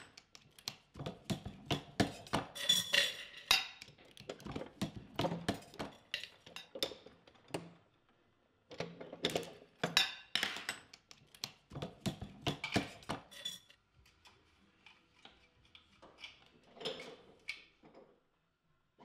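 Metal tools and wheel parts clinking and clacking as they are handled on a workbench, in quick clusters of sharp hits. There is a short pause about eight seconds in, and the hits grow sparser and fainter over the last few seconds.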